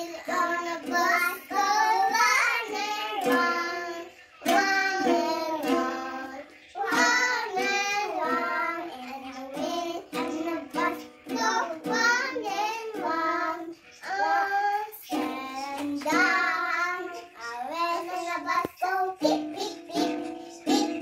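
A young girl singing a song in phrases, with a ukulele strummed along under her voice.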